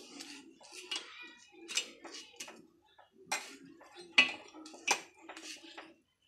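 Steel kitchen tongs clinking against the gas burner and pan while a rice roti is turned over an open flame: a string of sharp metallic clicks, about seven in six seconds, the loudest a little past the middle.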